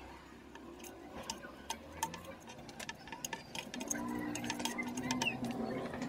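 Small irregular clicks and ticks of stripped copper wire ends being handled and twisted together by hand. From about four seconds in, a steady vehicle engine hum comes up behind them.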